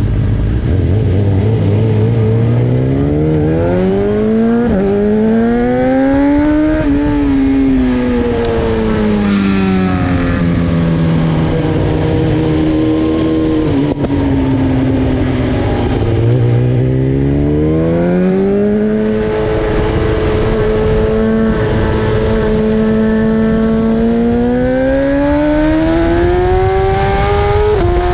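BMW S1000RR inline-four engine at racing revs, climbing through the gears with a quick drop in pitch at each upshift about four and five seconds in. The pitch then falls away slowly for several seconds as the bike slows, climbs again, holds steady for a while, and rises once more near the end.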